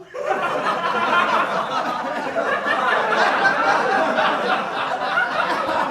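A crowd of people chattering and laughing, many voices overlapping at once, starting abruptly.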